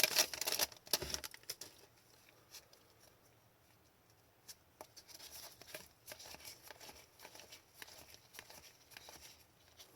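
Trading card pack wrapper crinkling and tearing for about the first second, then soft scattered clicks and rustles of cards being handled.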